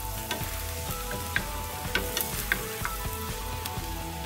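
Chopped onions and garlic sizzling in hot oil in a metal pan, stirred with a wooden spoon that gives scattered scrapes and taps against the pan.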